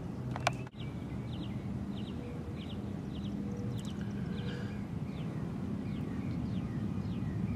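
Outdoor ambience: a bird chirping repeatedly, short falling double chirps about every half second that fade toward the end, over a low steady hum. A single sharp click sounds about half a second in.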